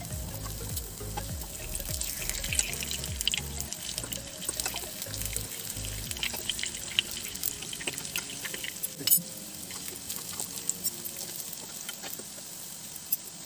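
Oil sizzling and crackling as small batter balls shallow-fry in a cast unniyappam pan, with a spoon and fork clicking and scraping against the pan as they are turned over; one sharper click comes about nine seconds in.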